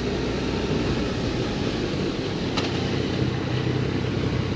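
Yamaha Niken's three-cylinder engine running steadily at low road speed, under a steady rush of wind on the microphone. There is a single sharp click about two and a half seconds in.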